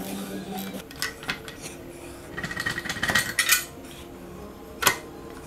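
Metal clinks and light rattles of hand tools against motorcycle exhaust hardware as the parts are worked loose by hand. About halfway through comes a quick run of clicking and scraping, and there is one sharp knock near the end.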